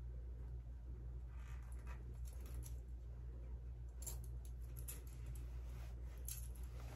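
Faint small clicks and rustling as hands fasten a chain necklace and adjust a shirt collar, a few separate clicks about 4, 5 and 6 seconds in, over a steady low hum.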